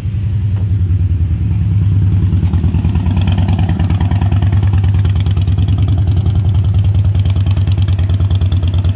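Harley-Davidson Softail Deuce V-twin motorcycle engine running loud with a rapid, lumpy pulse as the bike rides along the street. It cuts off suddenly at the end.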